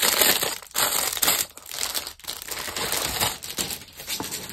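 Clear plastic packaging bag crinkling as hands handle it and draw out the acrylic piece inside, in uneven spells with short breaks.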